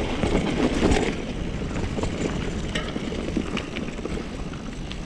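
Wind rumbling on the microphone and tyre noise from a mountain bike rolling along a trail, with a few light clicks and rattles.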